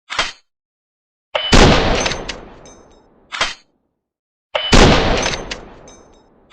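Two pistol shots about three seconds apart, each a sharp crack with a long fading tail and a few thin metallic rings. Short mechanical clacks come at the start, between the shots and at the end.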